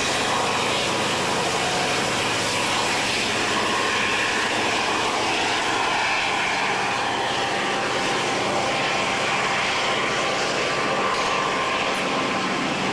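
Two EMD turbocharged 16-cylinder diesel locomotives, an SD40-2 and an SD40T-2 tunnel motor, working hard as they pull a freight train away, with a steady engine and turbocharger drone. Freight cars roll past on the track in front.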